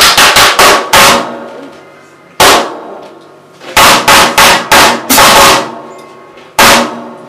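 Free-jazz drumming: hard, irregular drum hits in clusters, each ringing out before the next. There is a quick run of strikes at the start, a single hit, another run in the middle, and one last hit near the end.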